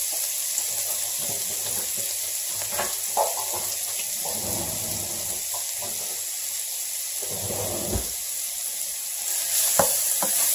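Grated onion frying in melted butter and olive oil in a skillet, a steady sizzle. Near the end a wooden spoon starts stirring it, the sizzle gets louder and there are a few light knocks against the pan.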